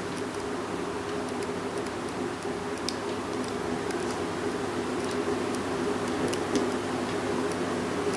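Steady low background hum with a few faint, scattered ticks.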